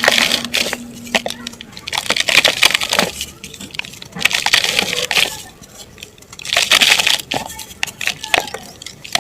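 Lumps of dry dirt being crushed and crumbling in the hand, crackly crunches with many small clicks, coming in bursts about every two seconds.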